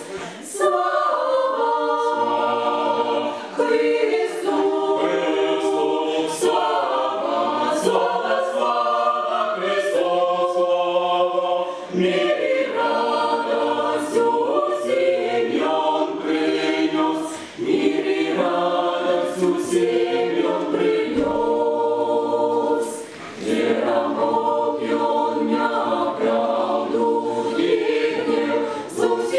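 Mixed choir singing a Christmas carol a cappella in several voice parts, in sustained phrases with brief breaks for breath between them.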